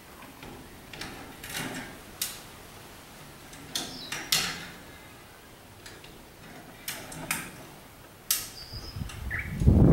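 Steel chain and rigging being handled and reset overhead: scattered metallic clinks and sharp knocks, several seconds apart. Just before the end a much louder continuous noise sets in.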